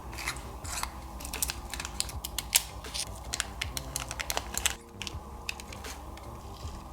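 Rapid, irregular clicking and tapping of small hard plastic pieces being handled, like typing. It stops suddenly near the end, leaving soft background music.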